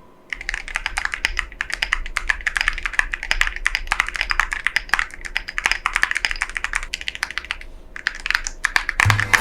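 Fast typing on a mechanical keyboard fitted with ceramic keycaps: a dense run of keystrokes that starts just after the beginning, with a short pause near the end before the typing resumes.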